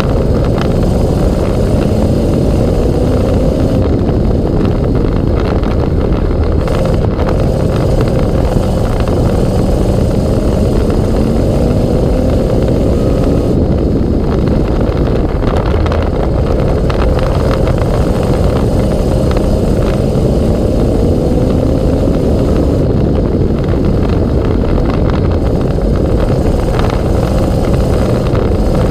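Dirt-track race car's V8 engine running hard at full volume, its pitch rising and falling again and again as the throttle opens and closes through the laps.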